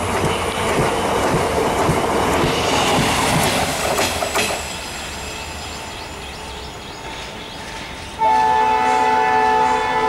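Spanish Talgo coaches rushing past at speed with wheel noise and a few sharp clicks, fading about four and a half seconds in as the train moves away. At about eight seconds a loud multi-tone train horn starts abruptly and is held steadily.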